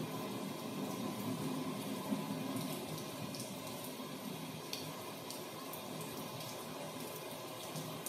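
Steady rain with scattered sharper drop clicks, mixed over the low, steady rumble of a train heard from on board.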